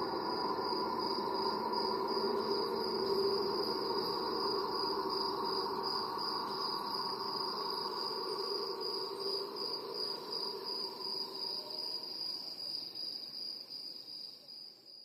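Cricket chirping in a fast, steady pulsing trill, over a low ringing drone that slowly fades away; both stop near the end.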